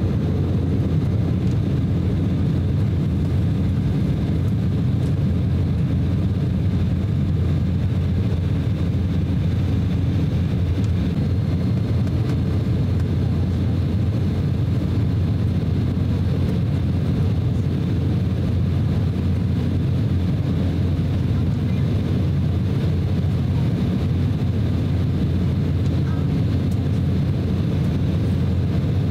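Cabin noise of an Embraer E190 jet at takeoff thrust: its two GE CF34-10E turbofans and rushing air make a steady, deep rumble as the jet leaves the runway and climbs.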